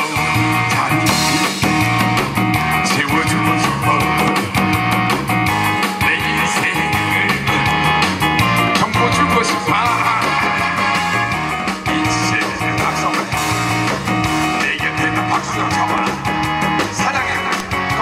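Loud amplified music with a fast, steady beat, playing without a break.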